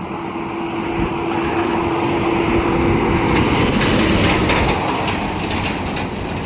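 A box truck driving past on a highway: engine and tyre noise growing louder, peaking about halfway through as it passes close by, then easing off as it moves away. A steady hum runs under it until the truck is alongside.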